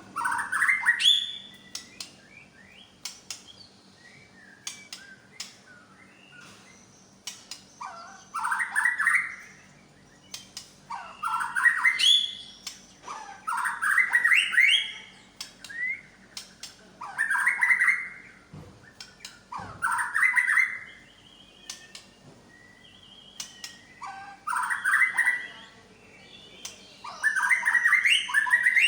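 White-rumped shama (Medan murai batu) singing a loud, varied song of rich whistled phrases, one every two to three seconds, with short sharp ticks between them. It is running through its 'isian', the repertoire of songs it has learned from other birds.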